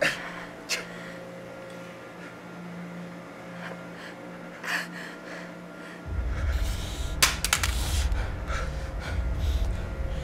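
Pained gasps and heavy breathing from a person who has just been shot, a few sharp intakes standing out. A low, steady rumble comes in suddenly about six seconds in and is the loudest sound after that.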